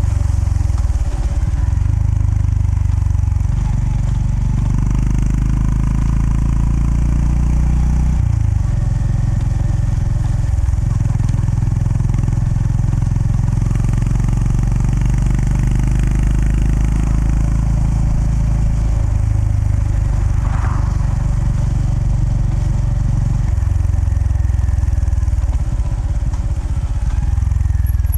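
Honda GB350S's air-cooled single-cylinder engine running while riding, its low note dropping and rising several times as the throttle is rolled off and on and the gears change.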